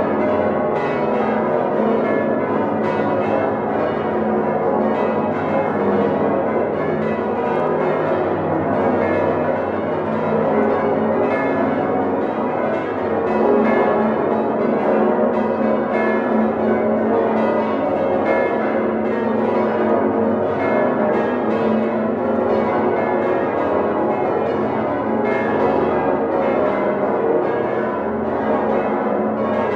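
Full peal of the Domtoren's swinging church bells, all rung together by hand, heard up close in the bell chamber. Strikes overlap in an unbroken, steady stream with many bell tones sounding at once.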